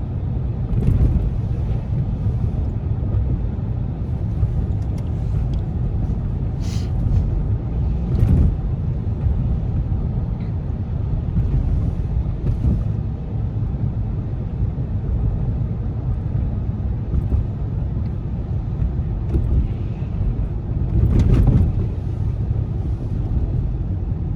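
Steady low rumble of a car driving, heard from inside the cabin, with a few brief louder bumps along the way.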